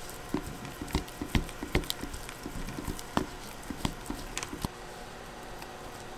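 Plastic spatula stirring and mashing thick paste in a plastic bowl: a run of irregular soft taps and clicks as the spatula knocks and scrapes the bowl, dying away about five seconds in.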